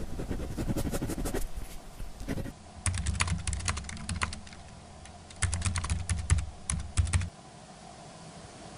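Typing on a Toshiba laptop keyboard: two runs of quick key clicks, the first about three seconds in and the second about five and a half seconds in, after a short stretch of rustling and knocks at the start.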